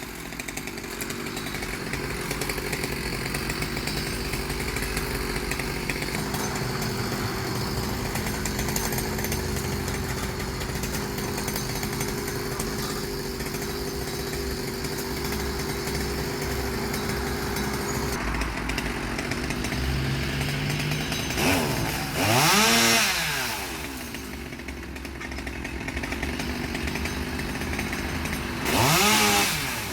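Petrol chainsaw running steadily, then revved up and let back down twice, about two-thirds of the way in and near the end.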